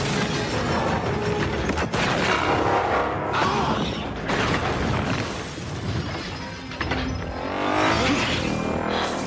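Action film soundtrack of a giant-robot battle: a music score mixed with crashing, shattering metal impacts and mechanical sound effects. There are sharp hits about two and four seconds in, and a rising sweep near the end.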